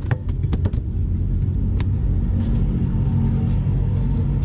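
Steady low mechanical rumble with a hum to it, like a running engine, and a quick run of sharp taps in the first second.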